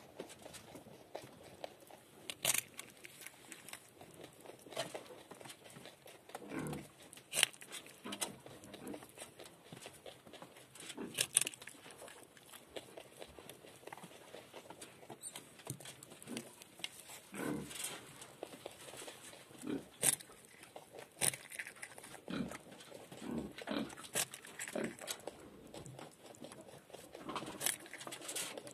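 A nutria gnawing and chewing a raw carrot close up, with sharp crunching bites at irregular intervals.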